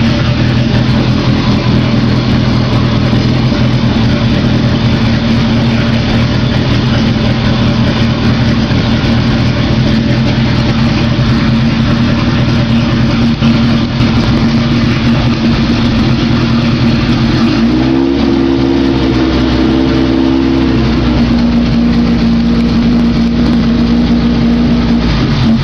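Naturally aspirated VW Gol engine with a 4-into-1 exhaust header, running loudly at a steady speed. About 18 s in it is revved up, held for about three seconds, then drops back to a steady run.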